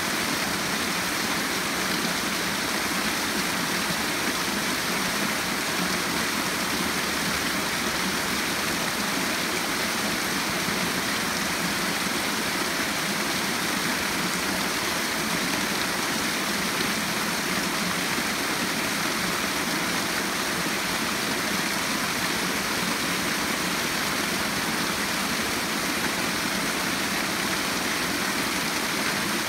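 Small rainforest creek tumbling over a rocky cascade: a steady, even rush of water.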